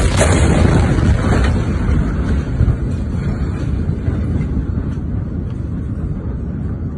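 Blast wave of the Beirut port explosion striking: a sharp crack right at the start, then a loud, low rumble that slowly fades.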